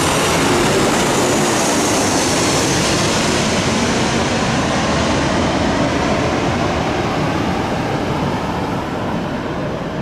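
Airplane noise: a loud rushing roar with a high whine that slides down in pitch over the first few seconds, the whole sound slowly easing off toward the end.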